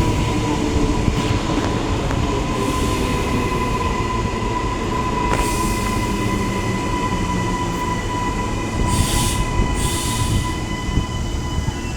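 Queensland Rail NGR electric multiple unit running in at the platform: a steady rumble of wheels and running gear under a constant whine. Short bursts of hiss come about nine to ten seconds in.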